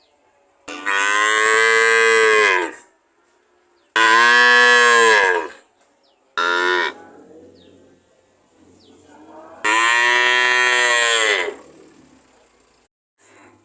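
Cow mooing: three long, loud moos of about one and a half to two seconds, each rising and then falling in pitch, plus a short moo about six and a half seconds in. Fainter, lower moos come in the gaps between them.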